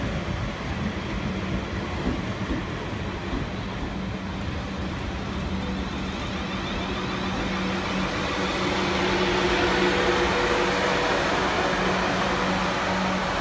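South West Trains passenger multiple unit running past along the platform: a steady low hum over continuous wheel-on-rail noise, growing a little louder in the second half.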